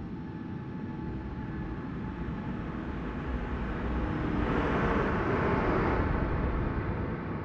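Boeing 777-300ER's GE90 jet engines as the airliner passes by: a broad rushing jet roar that swells to a peak about five seconds in, then fades.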